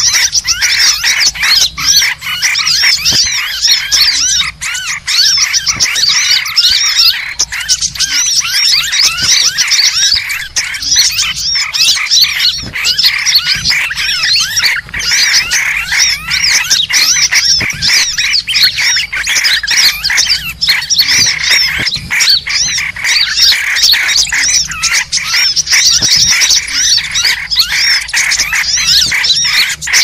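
Dense, loud chorus of many small birds chirping and twittering in rapid, overlapping high calls: a bird-lure (suara pikat) recording played to draw birds in.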